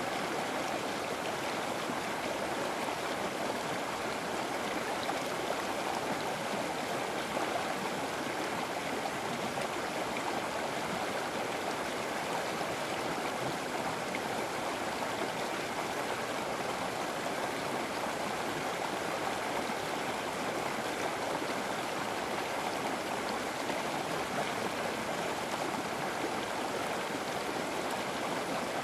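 River water flowing steadily over rocks, an even rushing and babbling with no breaks.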